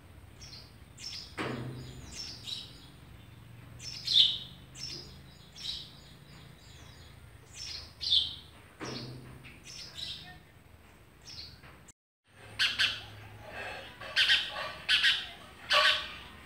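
Sparrows chirping in short, separate high calls, then, after a brief gap, a quicker run of louder chirps near the end.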